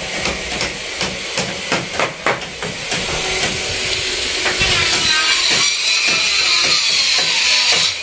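Hammer blows on wooden framing: a quick, irregular run of knocks over the first three seconds, followed by a steady hiss.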